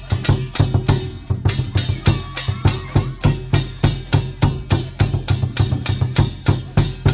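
Lion dance drum and cymbal music, beating a fast, steady rhythm of about three strikes a second.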